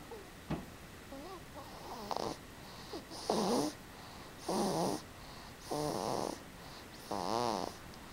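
Rhythmic snoring: four strong snores about every second and a quarter, each with a wavering pitch, after softer wavering sounds and a sharp click near the start.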